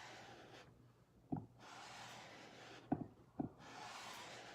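Handled squeegee dragged across a mesh stencil transfer, spreading chalk paste onto a wooden board. It makes three rubbing, scraping strokes of about a second each, with light clicks as the blade is lifted and set down between strokes.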